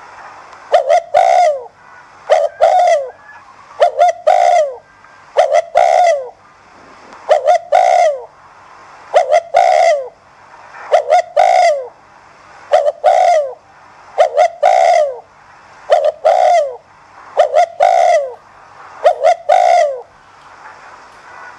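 Spotted dove cooing: a regular series of short two- and three-note coo phrases, each note falling in pitch, repeating about every second and a half. It is the fast 'thúc gù' coo that keepers play to spur other spotted doves to call.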